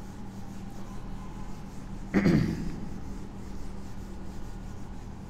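Whiteboard duster rubbing across the board over a steady low hum. About two seconds in there is one short, loud sound that slides down in pitch.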